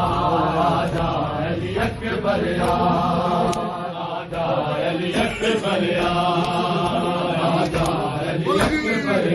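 Crowd of men chanting a noha in unison, with hand strikes on bare chests (matam) landing about once a second.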